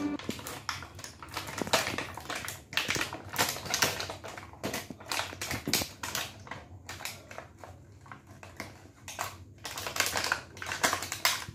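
Plastic blister packaging on a card of small toy cars crinkling and clicking irregularly as a small child grips and picks at it.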